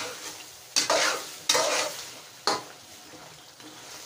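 Chicken and tomatoes being stirred with a metal spatula in an aluminium karahi, with a steady sizzle of frying oil. Three louder scrapes of the spatula against the pan come about a second apart.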